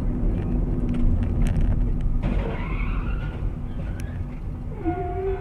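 A car's tyres squeal as it skids sideways across the road toward a guardrail, over the steady engine and road noise inside the recording car. Near the end a car horn starts sounding steadily.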